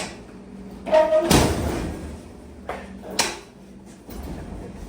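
Knocks and bangs of a vending machine being moved through a doorway. There is a loud knock with a brief metallic ring about a second in, then a heavy thump, and two sharper knocks a little later.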